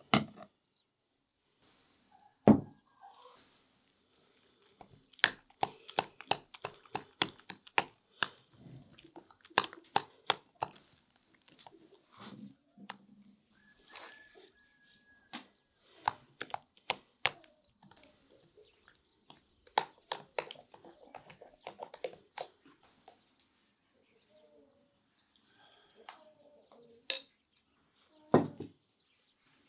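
Metal spoon clinking against a glass bowl while stirring, in quick runs of sharp clicks, with a single heavy thunk a couple of seconds in.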